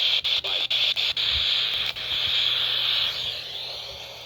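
Radio static: a hissy band of noise, chopped at first by rapid, regular dropouts, then steady, fading down about three seconds in.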